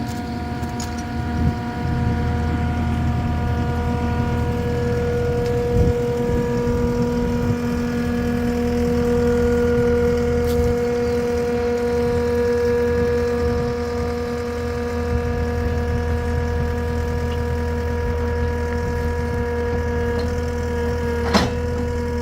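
An engine idling steadily, with a constant low rumble and an even whine over it. There is a thump about six seconds in and a sharp click near the end.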